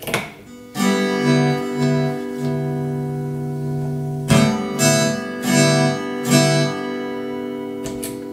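Strummed acoustic guitar music used as a test signal through a mixer channel. It cuts in about a second in, after a few clicks of a jack plug going into the channel input, with fresh strums a little past the middle and clicks again near the end.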